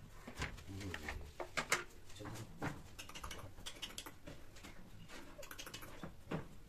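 Irregular light clicking and scuffling: cats' paws and claws shifting on a tiled floor as a tom mounts a female.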